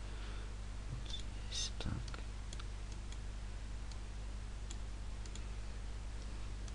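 A handful of sharp computer mouse clicks, spaced irregularly, over a steady low electrical hum from the recording setup, with a short breath-like hiss about a second and a half in.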